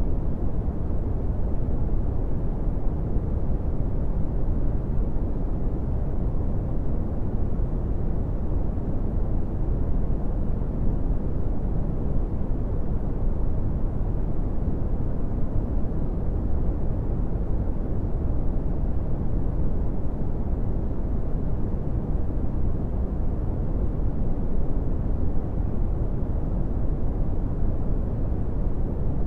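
Steady brown noise: an even, deep rumbling hiss with most of its energy in the low end and little above the midrange, unchanging throughout.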